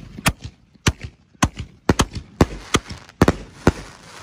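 Fireworks going off from a rack of mortar tubes: a rapid run of about ten sharp bangs, two to three a second, some coming in quick pairs.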